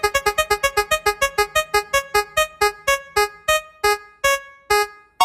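An electronic keyboard-like note repeated at one pitch, each strike fading quickly. The strikes slow steadily from about ten a second to about two a second, then stop.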